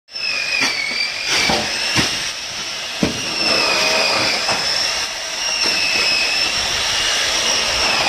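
A machine running with a steady high-pitched whine that wavers slightly in pitch, with a few sharp knocks spread through it.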